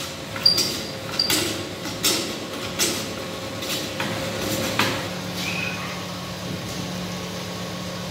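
Hand plane shaving along a wooden window frame, one stroke after another a little more than once a second for about five seconds, then a steady low hum.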